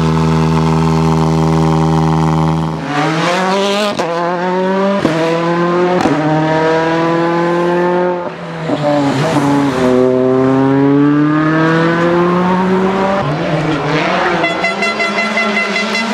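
Volkswagen Polo R WRC rally car's 1.6-litre turbocharged four-cylinder engine: idling steadily for about three seconds, then revving hard through quick upshifts, each marked by a sharp crack. The pitch falls as the car goes by, and the engine then revs up through another long pull.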